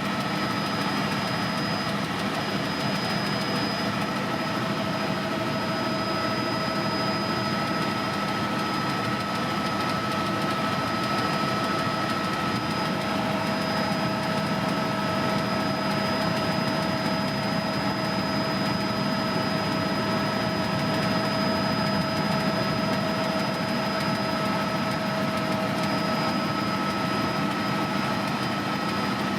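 Helicopter in flight, heard from inside the cabin: a steady drone of engine and rotor with a few constant whining tones over it.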